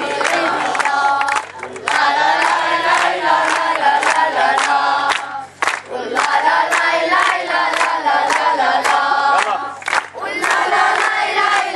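A group of children singing a chant in unison while clapping in time. The song comes in phrases with brief breaks between them.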